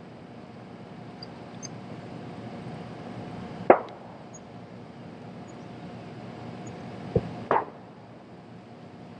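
A clamp being worked by hand onto an overhead line wire: a sharp metallic snap a little over a third of the way in, then a knock and a second snap close together near the end, over a steady low background noise.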